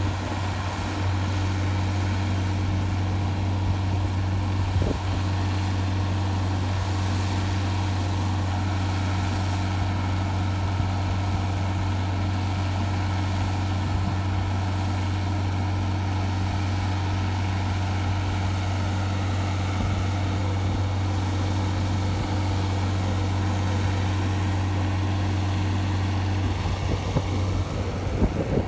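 Tractor-towed hydroseeder's engine running at steady, constant revs while it sprays hydromulch: a loud, even, low drone with a steady hum that holds pitch throughout.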